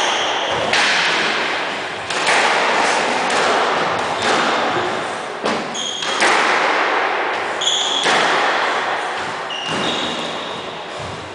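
Squash rally: the ball cracks off the racquets and the court walls, a hit every second or two, each one ringing on in the echoing court. Short high squeaks come between the hits, typical of court shoes on the wooden floor.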